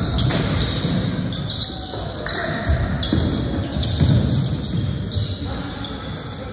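Basketball game in a gym: a ball bouncing on the hardwood and sneakers squeaking in short high-pitched chirps, with indistinct voices echoing in the hall.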